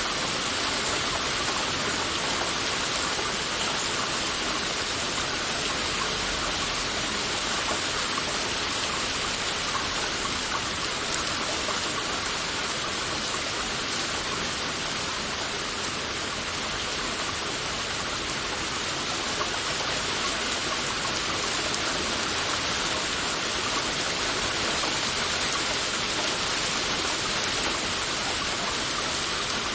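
Heavy rain falling steadily in a dense, even hiss of countless drops.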